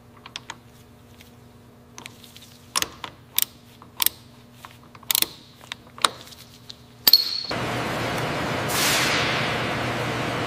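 A string of sharp clicks and knocks over a faint low hum. About seven seconds in, a loud click, then an abrupt switch to a steady hiss that swells briefly and settles.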